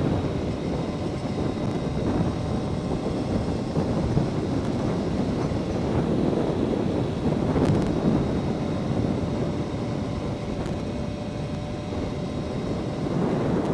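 Yamaha R1 sport bike's inline-four engine running while riding, with wind rushing over the microphone.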